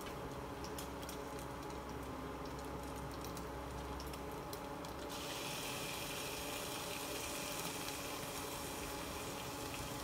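Sliced onion frying in oil in a nonstick pan with light, scattered crackling. About five seconds in, raw chicken pieces go into the pan and a louder, steady sizzle takes over.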